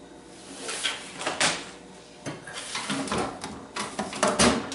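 Handling and rummaging noises: an item set down on a table, then tools and items knocking and sliding in the open metal drawer of a toolbox chest, with a run of sharp knocks near the end.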